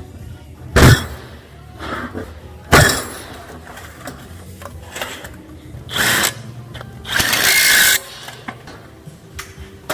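Workshop tool and metal-part noises from work on a 4L60 automatic transmission: two loud sharp bangs about 1 and 3 seconds in, then a shorter burst and a hissing noise of under a second near the end.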